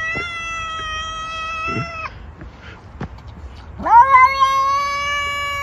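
Cat caterwauling: two long, drawn-out yowls, the first held until about two seconds in, the second starting with a sharp rising swoop about four seconds in and held steady.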